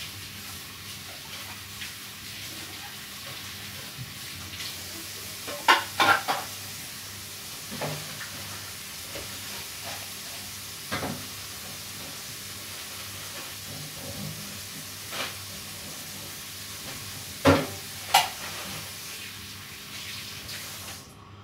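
Food sizzling in a pan, a steady hiss, with a few sharp clinks of a utensil against the pan, two pairs of them louder than the rest. The sizzling cuts off suddenly near the end.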